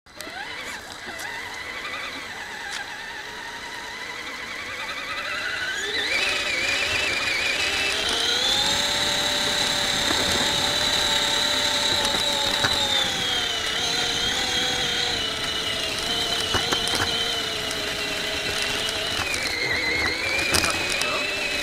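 Electric motor and gearbox of a scale RC crawler truck whining as it drives. The whine rises in pitch over the first six seconds or so, then holds high and wavers up and down with speed.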